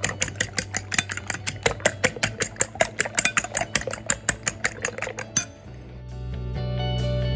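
A metal fork whisking eggs in a ceramic bowl, clicking against the bowl about six times a second. The whisking stops about five seconds in and background music fades in.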